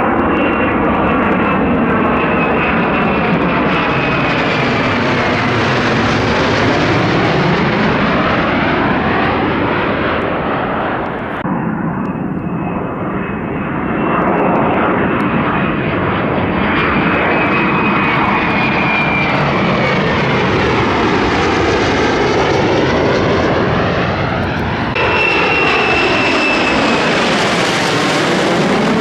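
F-35A fighter jet's single turbofan engine passing overhead with a loud jet noise and a high whine, its tone sweeping up and down as the aircraft moves. The sound changes abruptly about 11 seconds in and again about 25 seconds in.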